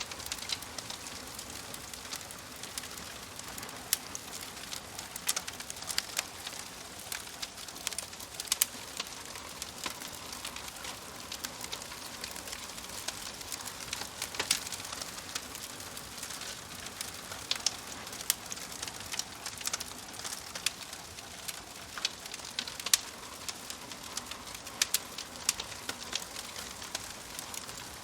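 A fire in a fireplace crackling: a steady soft hiss with frequent, irregular sharp pops and snaps.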